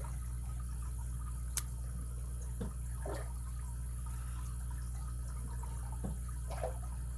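Small metallic clicks and scrapes of a lock pick and tension wrench working the pins of a pin-tumbler padlock, with one sharp click about one and a half seconds in, over a steady low hum.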